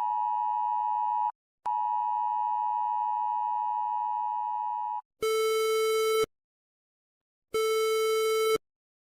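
Electronic siren tones. A steady, unwavering high tone sounds for about three seconds, breaks off briefly and sounds again for another three and a half; then a lower, buzzier tone comes in blasts of about a second with pauses of over a second between them.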